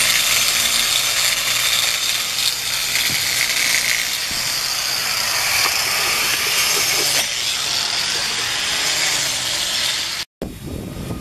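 Handheld electric angle grinder working the surface of a wood carving: a loud, steady, high hiss of abrasive on wood that cuts off near the end.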